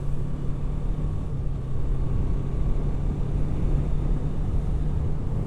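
Yamaha R3's parallel-twin engine running steadily while riding at low speed, under a haze of road and wind noise.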